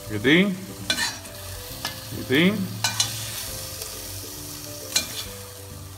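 Metal tongs scraping with two short squeaks against the bottom of a pot and clicking as seared beef cubes are lifted out, over a steady sizzle of hot oil.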